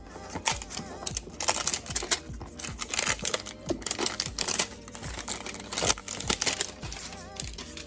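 Cardboard and packaging of a trading-card hanger box being handled and opened: irregular crinkling and sharp clicks and crackles, with quiet background music underneath.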